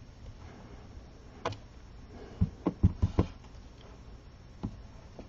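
A clear stamp on an acrylic block knocked down and pressed onto cardstock on a tabletop while stamping leaves: a few light, sharp knocks, several in quick succession near the middle.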